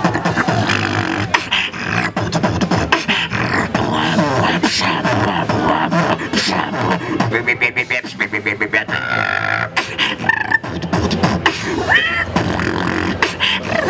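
A beatboxer performing into a handheld microphone: a fast run of vocal kick, snare and hi-hat sounds. From about halfway, pitched hummed tones and gliding notes join the beat.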